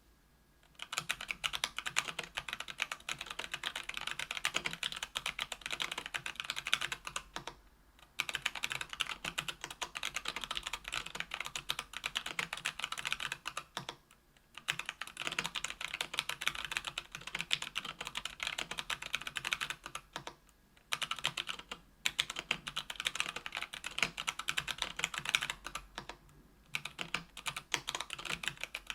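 Typing on a KBDfans Tofu 65% aluminium keyboard with stock, unlubricated Kailh BOX Brown tactile switches on an aluminium plate. The key clacks come in a fast, steady stream starting about a second in, broken by short pauses every several seconds.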